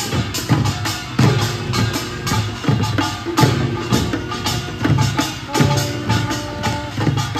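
Korean pungmul troupe playing a steady marching beat on buk barrel drums and sogo hand drums, with small brass gongs clanging. A held higher note sounds over the beat near the end.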